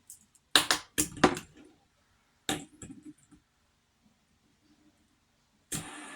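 Fidget spinner being handled and knocked about: a few clusters of sharp clicks and clacks, then a longer rattling clatter near the end.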